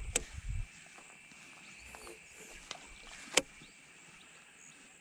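An angler walking a dry, grassy dam bank while handling a fishing rod: a few soft footstep thumps near the start and two sharp clicks, one just after the start and one about three and a half seconds in, over a faint steady outdoor background.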